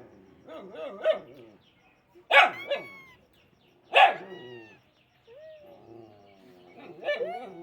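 A riled-up dog barking: two loud, sharp barks about two and a half and four seconds in, a weaker one before them, and quieter drawn-out sounds near the end.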